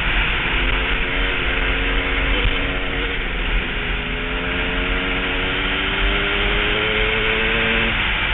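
KTM dirt bike engine under throttle at speed, its pitch climbing steadily as it pulls through the gears, dropping with a shift about two and a half seconds in and again near the end. Heavy wind rush on the microphone.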